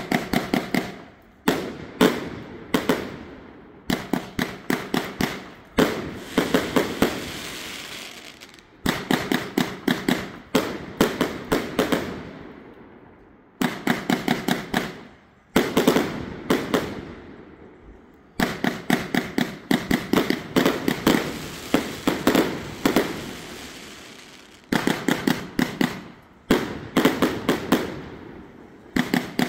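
A consumer firework cake firing shot after shot. Sharp reports come in quick volleys of several a second, each volley lasting a few seconds, with brief fading gaps between volleys.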